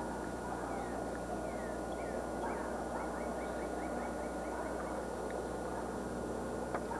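Bird chirping: short, quick downward chirps, scattered at first, then a rapid even run of about eight in the middle. Under it is a steady hum and hiss with a thin constant whine.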